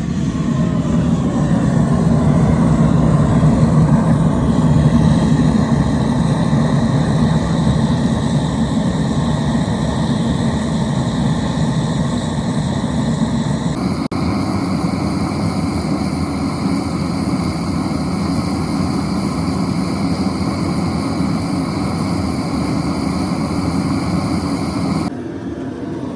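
Heavy wheeled dozer's diesel engine running steadily with a low drone. The sound changes abruptly about halfway through and again near the end.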